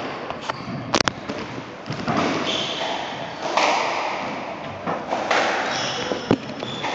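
Squash rally: the ball is struck by rackets and smacks off the court walls, about six sharp hits roughly a second apart, while court shoes squeak briefly on the wooden floor.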